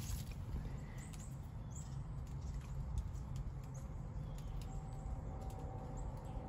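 Quiet woodland ambience: several faint, short bird chirps over a low background rumble, with a few light clicks and knocks, the loudest about three seconds in.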